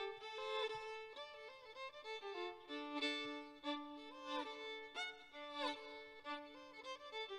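Solo fiddle bowed through a tune, often sounding two notes at once, with slides between notes.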